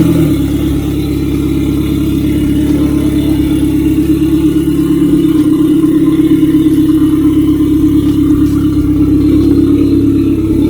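Turbocharged Mitsubishi 4B11 2.0-litre four-cylinder engine running loud and steady through a temporary dummy exhaust that is not connected, giving an unmuffled drone.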